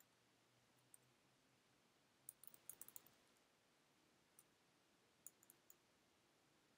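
Faint computer keyboard keystrokes: a quick run of key clicks about two to three seconds in, then a few scattered taps.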